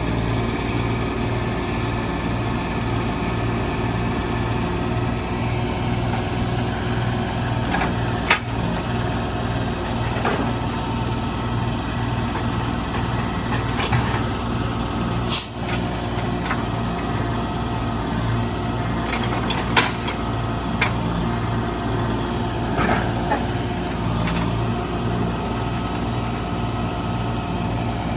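Heavy diesel engine of log-loading machinery running steadily, with scattered knocks and clunks as logs are handled and a brief hiss about fifteen seconds in.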